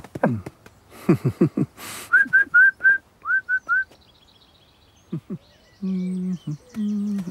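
Cartoon sound track: a few short voiced grunts, then seven short rising whistle notes in two quick runs, four and then three. Two steady low hummed notes come near the end.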